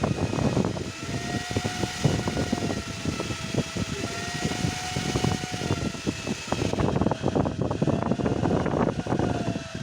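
Small computer processor fan wired into a Suzuki Mehran's electrical system, running with a whine whose pitch rises and falls several times as the clutch pedal is pressed and released. The fan speeding up with the clutch is the sign of a broken battery-negative-to-body ground wire, with current finding a ground through the clutch cable. Rapid clicks and rattles run under the whine.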